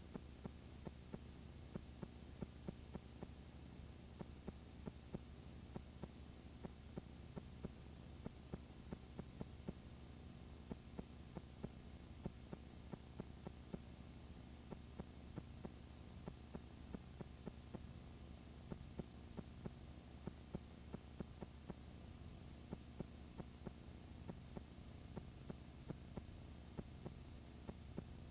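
Faint steady low hum with irregular clicks a few times a second: playback noise from an unrecorded stretch of videotape.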